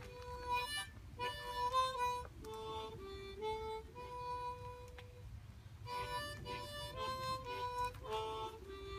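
Harmonica playing a slow melody of long held notes that step up and down, some notes ringing for a second or more.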